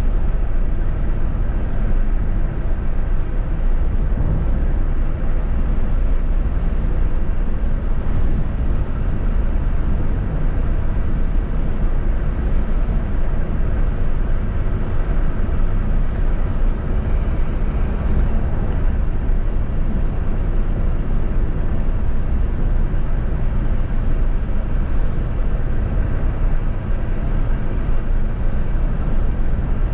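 Steady road and wind noise of a vehicle cruising along a highway, a constant low rumble without breaks.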